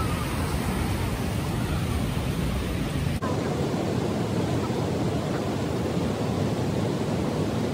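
Steady rush of river water running over rocks and rapids. About three seconds in, a cut changes it to a similar rush with less low rumble.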